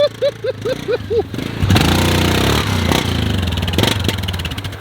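Yamaha Grizzly 660 ATV's single-cylinder engine running, its revs swinging briefly about two seconds in, then settling to a steady run. A quick series of short chirps is heard in the first second or so.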